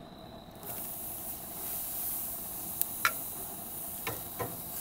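Marinated pork tenderloin sizzling on a hot wood-fire grill grate: a steady hiss that starts about half a second in as the meat goes down, with a few sharp clicks of metal tongs near the middle and end.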